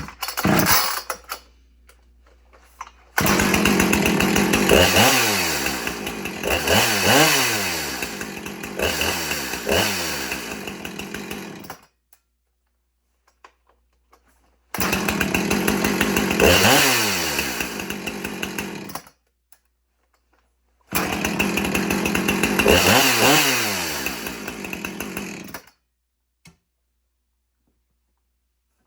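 Two-stroke chainsaw engine running, revved up and down repeatedly with throttle blips, in three separate runs that each stop abruptly.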